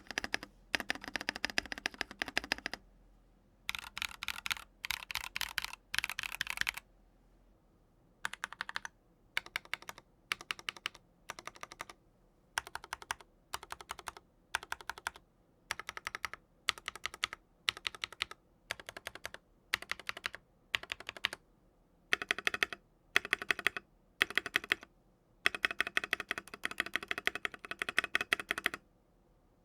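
Mechanical keyboard fitted with linear switches being typed on in bursts of rapid keystrokes: a long run at first, then a series of short, evenly spaced bursts, and two longer runs near the end.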